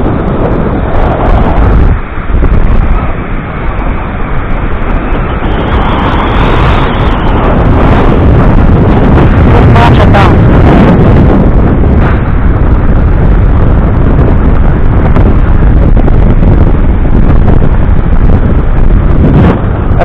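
Strong wind buffeting the camera microphone with a loud, steady rumble, over the surf of a stormy sea. It eases briefly a couple of seconds in, then stays loud.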